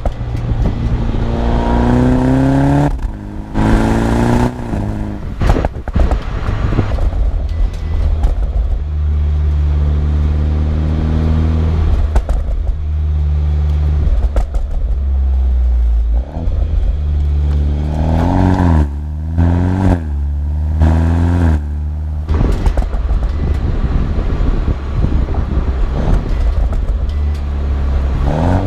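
A BMW 125i's B48 turbocharged four-cylinder through a full M140i cat-back exhaust, accelerating with the engine note climbing and cutting off sharply at upshifts. It settles into a steady low drone while cruising, then pulls hard again through several quick upshifts, and starts climbing once more near the end.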